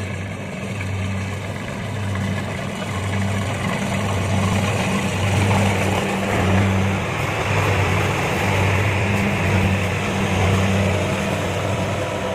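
Kubota combine rice harvester running while harvesting: a steady diesel engine hum under a broad rushing noise from the machine's working parts, growing louder through the middle and easing near the end.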